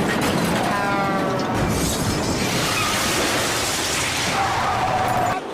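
Dubbed car-crash sound effect: a long, dense run of crunching and shattering, with some short falling squeals about a second in.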